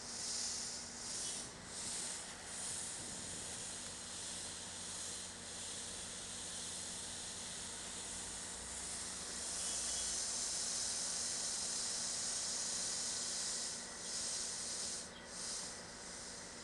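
Compressed air hissing from a stopped NJ Transit commuter train, over a faint steady hum. The hiss comes in short pulses at first, holds louder and steadier for a few seconds midway, and pulses again near the end.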